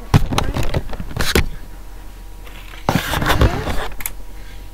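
Hard plastic toy truck being handled on a carpet: a few sharp clicks and knocks, then a scuffing rush of noise about three seconds in as a hand grabs and moves it.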